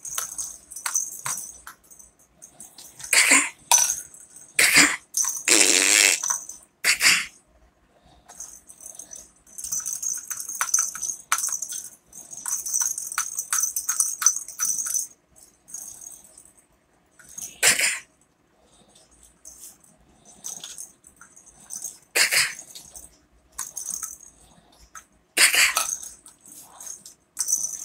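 Plastic ball rattle toy being shaken and handled by a toddler, its beads rattling in irregular spells, broken by several short, loud noisy bursts.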